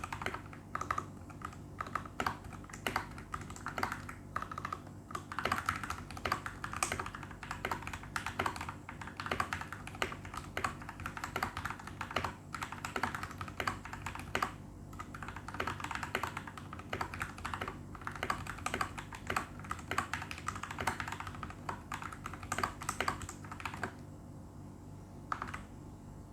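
Typing on a Royal Kludge RK860 mechanical keyboard with lubed RK/Huano brown switches, foam-modded: a steady, fast run of keystrokes that thins to a few scattered presses near the end.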